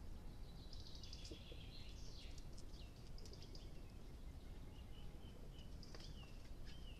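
Woodland birds chirping and giving short falling whistles over a faint, steady low rumble of background noise.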